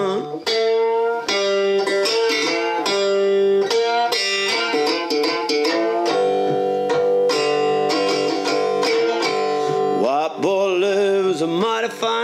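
Resonator guitar played slide-style in an instrumental break: plucked notes ring and are held, with gliding, wavering slides in the last couple of seconds.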